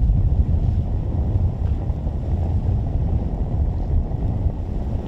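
Wind buffeting the microphone aboard a moving ferry: a loud, low, rumbling noise with no steady tone in it.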